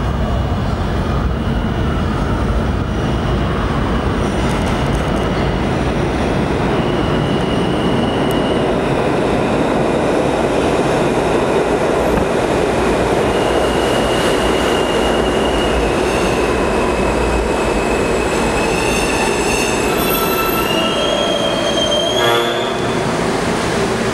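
R160A-1 subway train entering the station and braking to a stop: a steady rumble of wheels on rails, with high-pitched squealing tones as it slows. The tones climb in pitch just before the train halts about 22 seconds in, and the rumble dies away.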